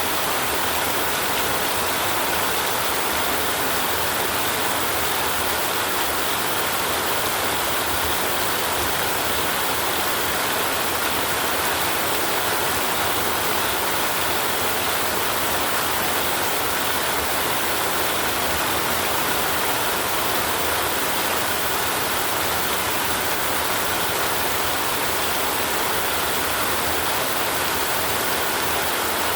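Steady heavy rainfall, a continuous even hiss with no let-up and no thunderclap.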